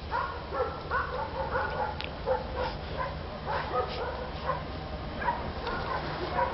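A dog barking and yipping over and over, a couple of short barks a second, over a low steady rumble of trains.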